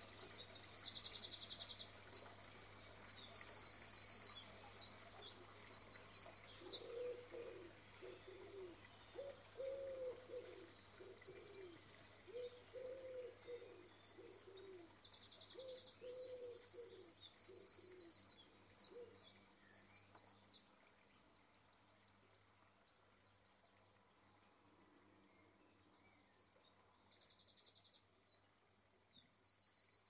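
Birds singing: bouts of high, rapidly repeated chirps and trills, loudest in the first few seconds and coming back in the middle and near the end, with a lower cooing call repeated through the middle.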